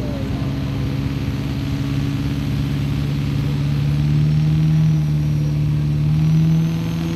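Diesel pickup truck's engine at full throttle, pulling the weight sled down the track. It is a steady, loud drone whose pitch climbs slowly as the revs build.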